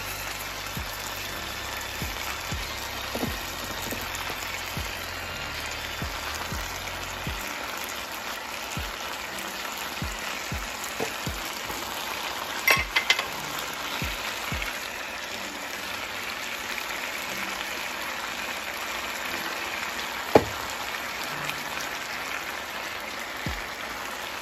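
Sliced potatoes and onions frying in butter in a hot skillet: a steady sizzle, with a cluster of sharp clicks about halfway through and one more later on.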